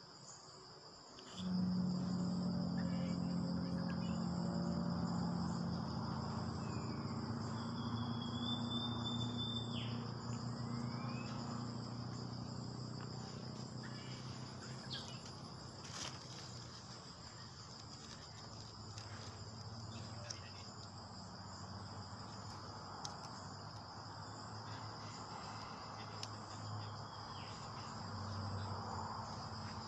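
Insects calling steadily in an even, high-pitched tone. About a second and a half in, a louder low steady hum joins them and carries on.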